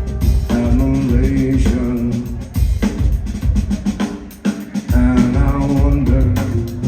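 A live rock band playing, with drum kit and bass. About four seconds in, the bass and drums drop out for under a second, and then the full band comes back in.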